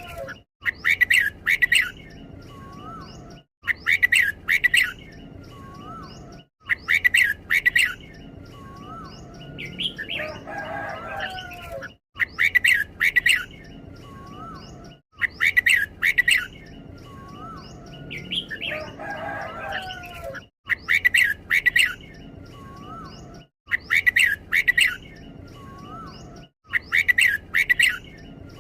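Red-whiskered bulbul singing its doubled song: a short, bright phrase given twice in quick succession, repeated about every three seconds. Between some phrases the sound drops out to brief silence, and a lower, busier call comes in twice.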